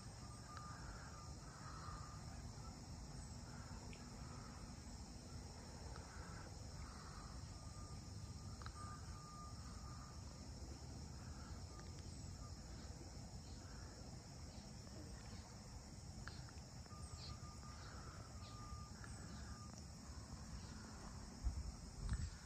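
Faint riverside ambience: a steady high insect drone with birds calling on and off, including short whistled notes. A few low thumps come near the end.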